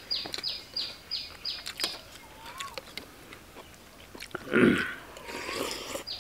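A bird calling a quick series of short, high, falling notes, about three a second, which stops about two seconds in. Light clicks of metal spoons against a ceramic bowl come throughout, with one brief louder burst of noise about four and a half seconds in.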